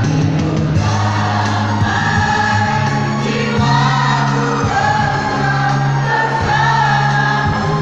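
Choir singing with accompaniment holding long, low notes that step from pitch to pitch.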